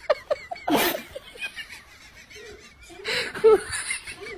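People laughing and snickering. A short, loud, noisy burst comes a little under a second in, and a louder bout of laughter follows near the end.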